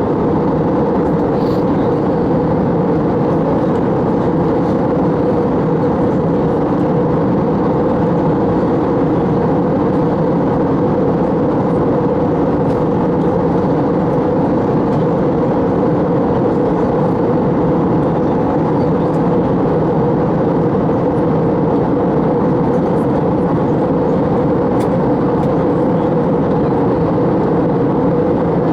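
Steady cabin noise inside an Airbus A321 airliner in flight: an even, unchanging rush of engine and airflow noise, heaviest in the low and middle range.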